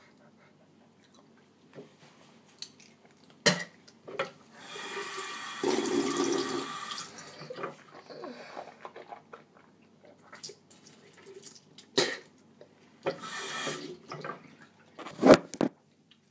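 Water running from a tap in two short spells, the first about two and a half seconds long, the second about a second, with a few sharp knocks and bumps; the loudest knock comes near the end.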